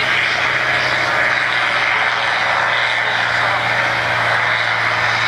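Large farm tractor's diesel engine running hard and steady under load while it pulls a weight sled in a tractor pull.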